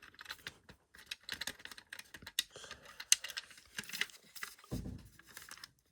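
Light, irregular clicks and rustles of an Ei smoke alarm's plastic casing being handled and turned over in the hands, with a soft low thump near the end.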